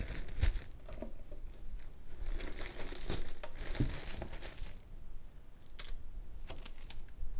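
Clear plastic bag crinkling and rustling as an instrument is slid out of it. The rustle stops about two-thirds of the way through, leaving a couple of light clicks.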